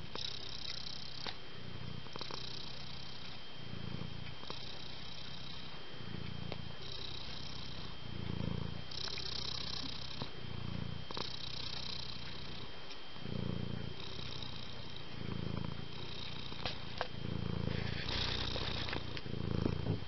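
Domestic cat purring close up, the purr swelling and easing with each breath about every second and a half.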